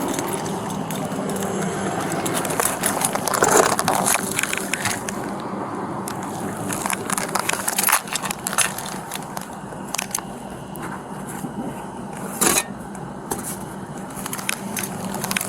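Rustling and scraping with scattered clicks and knocks over a steady low hum, the loudest knocks about four seconds in and again near twelve and a half seconds.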